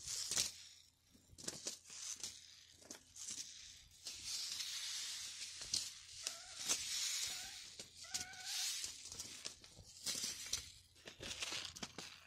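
Paper seed packets rustling and crinkling as they are shuffled and flipped through by hand, in a run of short, uneven scraping bursts.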